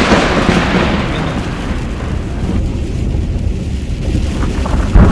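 Thunder rumbling and fading away over the first couple of seconds, heard from inside a moving car over its steady low road noise. A short thump near the end.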